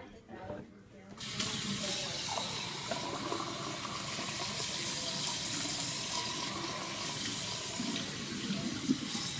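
Water running steadily from a kitchen tap into a sink, turned on about a second in.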